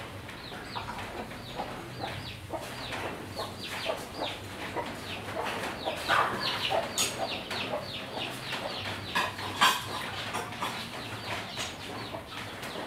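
Birds calling in the background: a dense run of short, falling chirps, several a second, louder through the middle, over a faint steady low hum.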